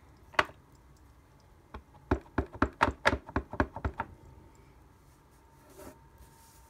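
A click, then a quick run of about ten light knocks, roughly five a second, as a clear acrylic stamp block is tapped onto a Real Red ink pad to ink the rubber stamp.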